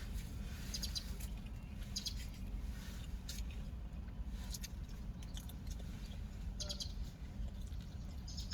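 Small birds chirping in short bursts every second or two, over a steady low hum.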